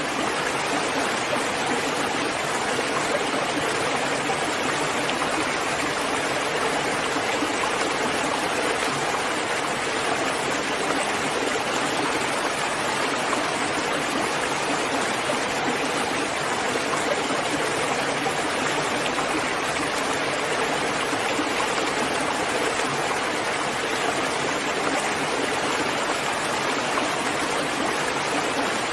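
Steady, heavy rain: a dense, even hiss of falling water with no let-up.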